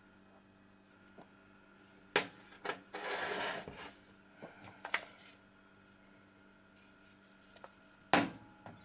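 A small glass ampoule and a plastic vitamin tube being handled and set down on a stainless steel counter: several sharp knocks, the loudest near the end, with a scraping noise lasting about a second around three seconds in.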